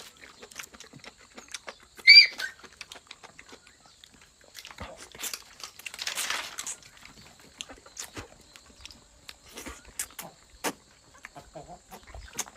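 Close-up eating sounds: chewing and many small clicks and ticks while eating chicken. About two seconds in comes a short high-pitched squeal, the loudest sound, and around six seconds a brief hissy rustle.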